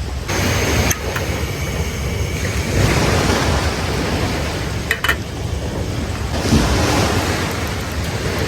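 Sea waves washing onto a beach, swelling twice, with wind buffeting the microphone as a low rumble. A sharp click about five seconds in.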